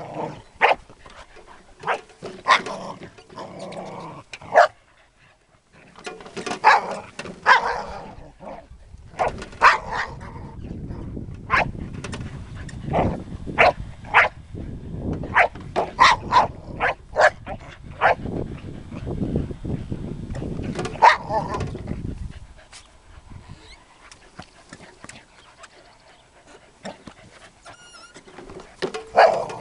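Heeler (Australian cattle dog) barking at a lawn mower in many short, sharp, irregular barks, thick for about twenty seconds and then dying away, with a low rumble under the barks through the middle that stops at about the same time.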